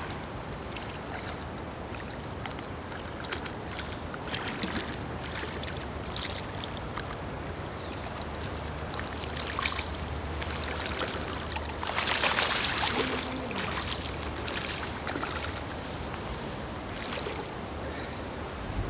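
Steady rush of flowing creek water, with scattered small clicks and a louder surge of noise about twelve seconds in.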